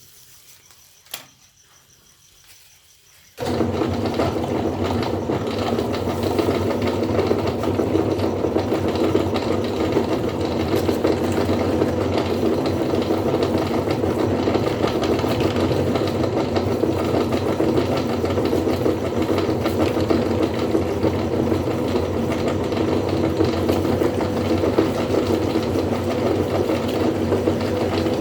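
A sharp click, then about three seconds in an electric meat grinder's motor starts suddenly and runs steadily with a loud, even hum.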